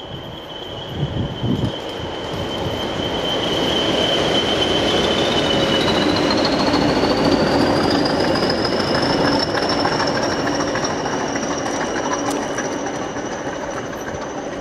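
Two coupled Class 20 diesel locomotives passing, their English Electric engines running, loudest in the middle. A steady high whistle splits about five seconds in, one part climbing steadily in pitch.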